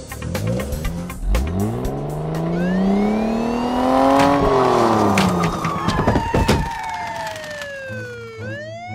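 Car engine revving up, its pitch climbing for about three seconds, then dropping away. Then a police siren wails, falling slowly in pitch and swinging back up near the end.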